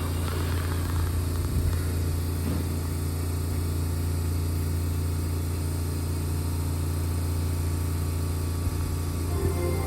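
Keihan 3000-series electric train standing at the platform, its onboard equipment giving a steady low hum.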